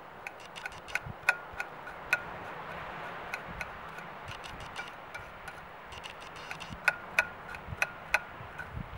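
Kitchen knife slicing shallots on a plate: sharp, irregular knocks of the blade against the plate, some ringing briefly. The knocks come in two busy runs, about one to two seconds in and again from about six to eight and a half seconds, and thin out in between.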